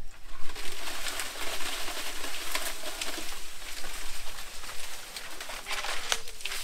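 A large bundle of dry stalks for fuel rustling and crackling as it is carried up close. The sound is a dense, scratchy crackle of many small snaps.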